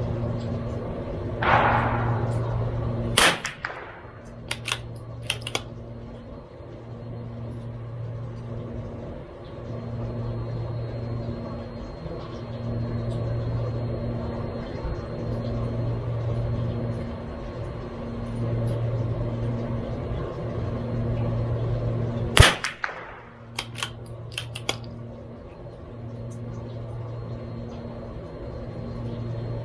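CZ 457 MTR .22LR bolt-action rifle firing Eley Match target ammunition: two sharp shots about 19 seconds apart, each followed by a few lighter clicks. A low hum swells and fades every second or two throughout.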